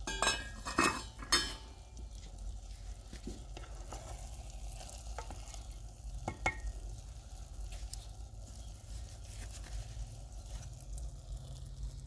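A spoon stirring thick eggplant and tomato mixture in a metal pot over wood embers, the food sizzling, with small scrapes and ticks. A few sharp metal clinks come in the first second and a half, and there is one knock about six seconds in.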